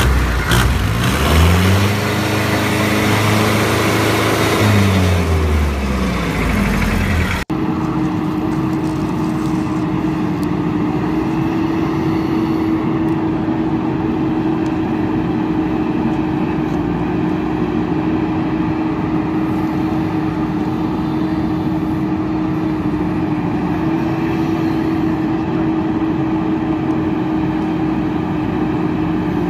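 A vehicle engine revving: its pitch rises over a couple of seconds, holds, and falls away by about seven seconds in. Then, after an abrupt cut, a steady engine drone at one unchanging pitch.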